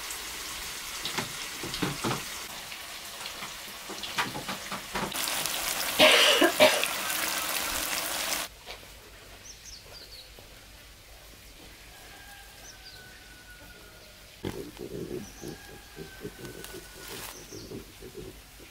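Tofu frying in oil in a wok: a steady sizzle with spattering, loudest from about five to eight seconds in, then cutting off suddenly. After that, quieter outdoor sound: a couple of long whistled calls and a few short chirps, with brief low rustles and bumps near the end.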